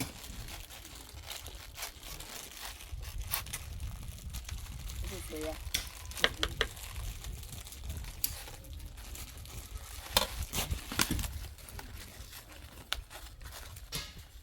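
A large pot of jollof rice cooking: sizzling, with a spoon scraping and knocking against the pot now and then, over a steady low rumble.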